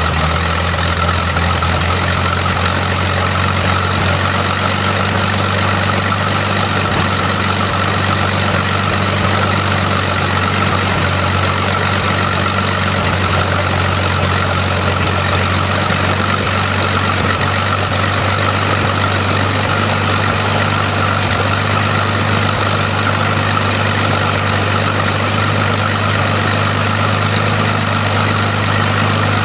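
A Hawker Hurricane's Rolls-Royce Merlin V12 piston engine running steadily at an even, low speed, with no change in pitch or level.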